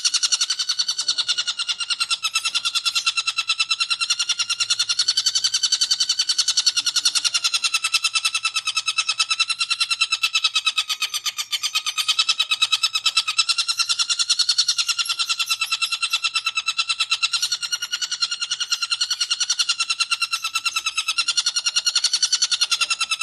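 Long-tailed shrike (cendet) giving its 'ngekek' chatter: a fast, unbroken stream of harsh rapid notes held at one pitch with a slight waver.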